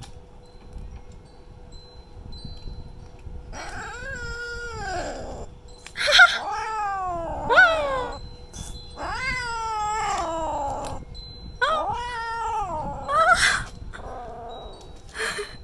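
Tabby kitten yowling over a lickable cat treat: about five drawn-out, wavering calls, each rising then falling in pitch, starting a few seconds in and ending about two seconds before the end.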